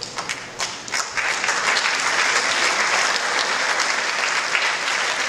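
Audience applauding: a few scattered claps, then full, steady applause from about a second in.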